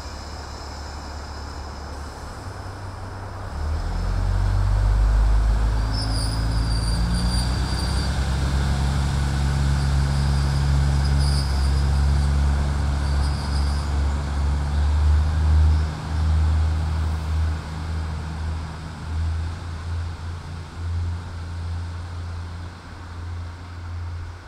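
KiHa 40-series diesel railcar idling, then its diesel engine opening up about four seconds in as the car pulls away. A loud low drone rises slowly in pitch, with a few brief high squeals in the middle, and grows fainter and uneven over the last several seconds as the car moves off.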